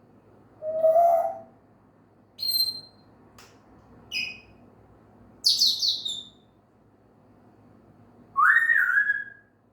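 African grey parrot calling and whistling: about five separate short calls spaced a second or two apart, ranging from a low call to high whistles, one falling and one rising, with a single sharp click between them.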